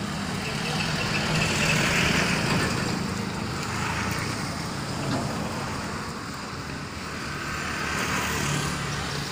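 Road traffic noise: a motor vehicle engine running with a steady low hum under a broad wash of street noise.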